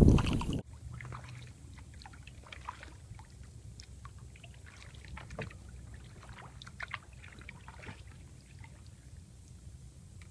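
A brief rush of wind on the microphone at the very start, then the quiet sounds of a fiberglass canoe being paddled slowly through still water: soft paddle dips, drips and small splashes over a low steady rumble.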